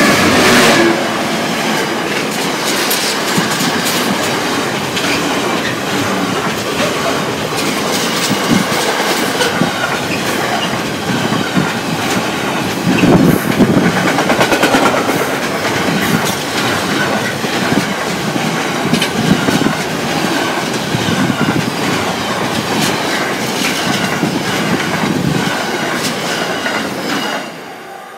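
Diesel-hauled container freight train passing close by: a loud, continuous rumble of wagons with rapid clicking of wheels over the rail joints. The sound drops away sharply near the end.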